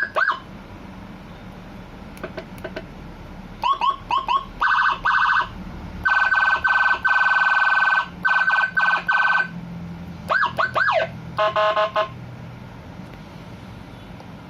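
Electronic siren with a Whelen HHS tone set, played through a loudspeaker horn in short bursts of different tones. Quick sweeping chirps and rapid pulsing warbles alternate with a held tone broken by short gaps. The siren stops about twelve seconds in, leaving a low steady hum.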